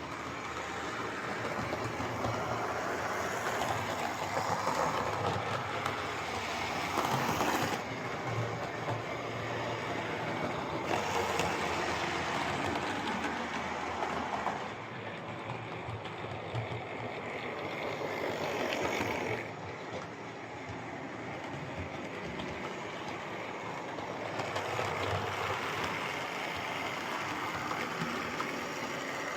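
Freshly serviced Tri-ang Hornby R850 Flying Scotsman OO gauge model steam locomotive running on model railway track: a steady rumble of motor and wheels on rails that grows and fades in loudness, dropping sharply a few times.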